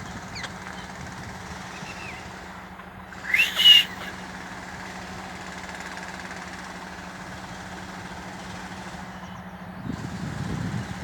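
Rose-ringed parakeet giving a loud, shrill screech in two quick rising notes about three seconds in, with faint short chirps before it. A steady low hum underneath stops shortly before the end.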